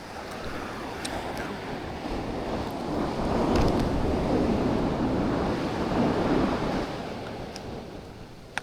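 Ocean surf washing onto the beach, swelling to a peak in the middle and then fading away, with wind buffeting the microphone.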